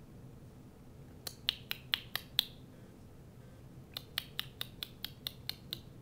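Two quick runs of sharp clicks, about five a second, made by a person: about six starting about a second in, then about nine more starting around four seconds in.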